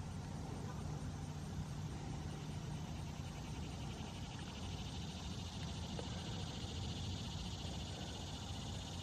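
Steady low rumble of a distant motor. An insect's steady, finely pulsed high trill joins it about three seconds in.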